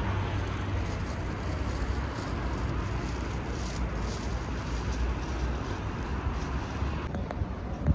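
Steady rumble of city road traffic, with a short knock just before the end.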